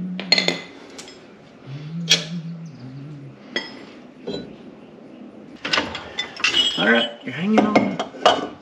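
Ridgid cordless power tool spinning rear leaf-spring U-bolt nuts loose: it stops about half a second in and runs again briefly about two seconds in, at a lower pitch. Then come a few light metal clinks and low, wordless voices near the end.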